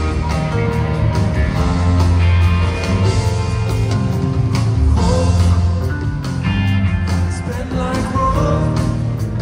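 Rock band playing live, with electric guitars, bass, drums and keyboards, recorded from within the audience.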